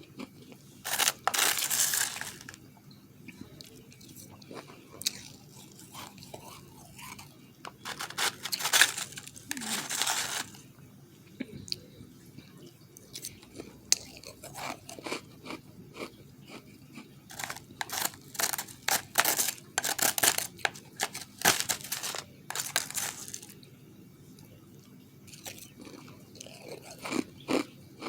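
Refrozen powdery ice being bitten and chewed close to the microphone: two long crunching bites early, then a fast run of sharp crunches as the ice is chewed, easing off and picking up again near the end.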